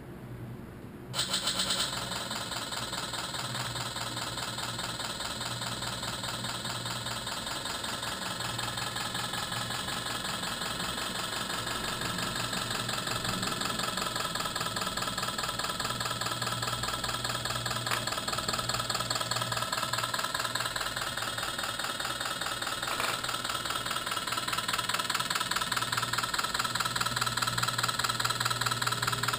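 Simulated diesel engine sound from a radio-controlled model's sound unit: it starts abruptly about a second in, then runs as a steady, rhythmic diesel clatter that grows slightly louder toward the end.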